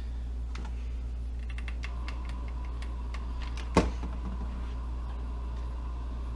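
Scattered light clicks and taps of hand work on a foam RC plane, with one sharp knock near the middle, over a steady low hum and a faint steady high whine that starts about two seconds in.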